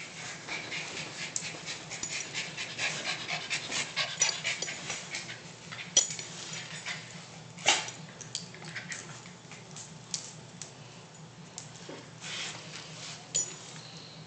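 Dog panting as it rubs its face and head against a dryer sheet on a tile floor, with scattered sharp scrapes and clicks of the sheet and claws on the tile, the loudest about six and eight seconds in.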